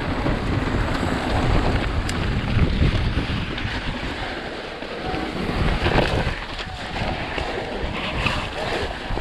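Wind rushing over the camera microphone as a mountain bike descends at speed, with its tyres rumbling and knocking over loose rock and dirt, then running onto snow, where the low rumble eases about halfway through.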